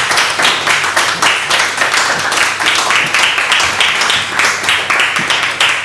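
Audience applauding, a dense, steady run of hand claps.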